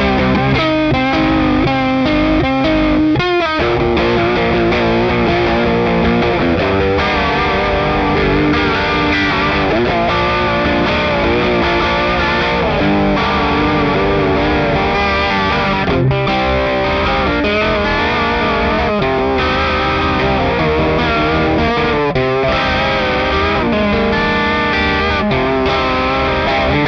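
Electric guitar played through an EarthQuaker Devices Aqueduct vibrato pedal in its random mode, the notes' pitch wobbling unevenly in a warped-record effect. The playing runs on without a break.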